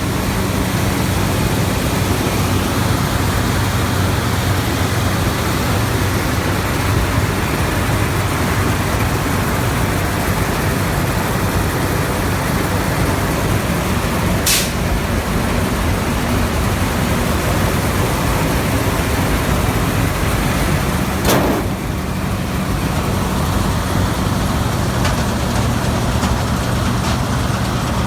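New Holland TX68 combine harvester with its Iveco diesel engine running steadily, a continuous loud drone. Two brief sharp clicks cut through it, one about halfway and one about three-quarters through.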